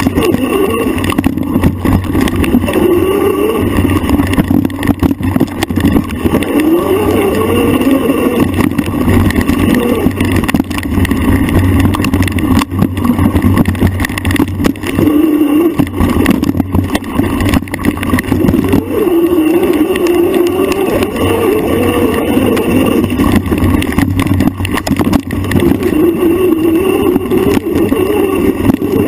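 Motor of a trail bike under way on rough single track, its pitch rising and falling every few seconds as the bike speeds up and slows, over a steady low rumble of wind and trail noise.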